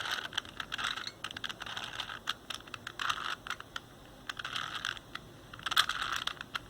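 A 4x4x4 Rubik's cube being turned by hand in quick runs of moves: bursts of plastic clicking and clacking as the layers snap round, the loudest about six seconds in. It is the cube being worked through a corner-positioning algorithm.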